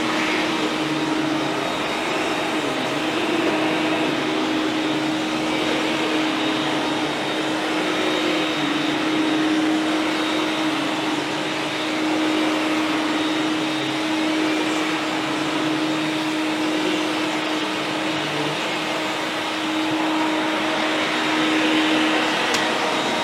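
Sirena water-filtration vacuum cleaner running steadily, its motor holding one constant hum.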